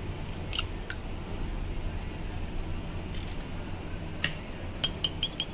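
An eggshell is tapped and cracked open with a spoon over a glass bowl, giving a few faint clicks. About a second before the end, a metal spoon starts beating the eggs in the glass bowl with a quick, even run of clinks against the glass, about six a second. A steady low hum runs underneath.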